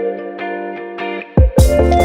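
Music: picked guitar notes over a held chord, then drums and bass come in with the full band about one and a half seconds in.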